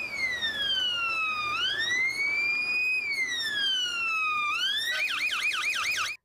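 Police car's electronic siren on a slow wail, the pitch falling and rising about every second and a half, switching about five seconds in to a fast yelp of about five cycles a second, then cutting off suddenly.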